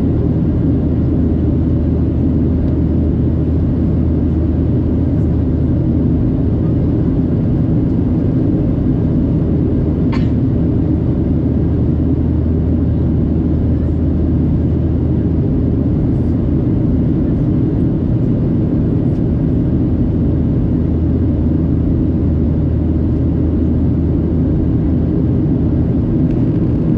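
Boeing 737-700 jet engines and airflow heard inside the passenger cabin during the climb after take-off: a loud, steady, low rumble with no change in pitch. A brief faint click about ten seconds in.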